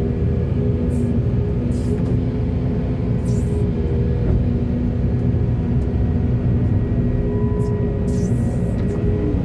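Heavy diesel engine of an excavator running steadily under load, a continuous low drone with a hum whose pitch holds level, and brief hissy bursts now and then.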